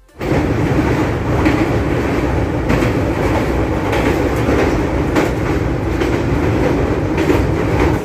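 A train running on the rails: a steady loud rumble with occasional clacks of the wheels over the track.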